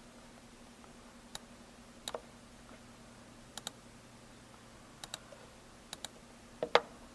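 Computer mouse and keyboard clicks: a handful of sharp single and double clicks about a second apart, with a softer knock near the end, over a faint steady hum.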